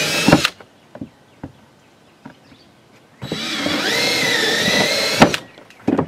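Cordless drill boring through a plastic trim panel with a honeycomb core: a run of the drill that stops about half a second in, a pause with a few light knocks, then a second run of about two seconds whose whine rises in pitch and then holds steady, ending with a sharp click. A few knocks near the end.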